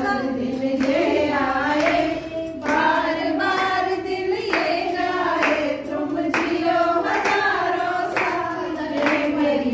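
A group of women singing a song together, with hands clapping along.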